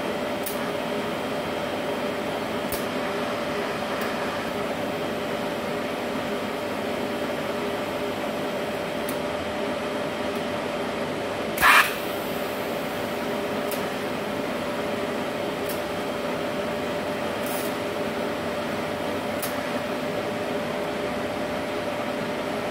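Steady running hum of a switched-on TIG welding machine and its water-cooling unit, with faint ticks now and then. A brief loud burst comes about halfway through.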